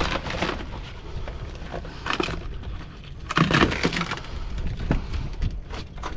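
Crackling and crunching of stiff, brittle debris being pulled loose and handled, in irregular bursts, loudest about three and a half seconds in.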